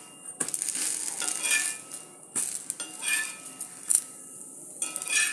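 A metal utensil scraping and clinking on a hot dosa pan, several separate strokes, over the sizzle of cooking batter.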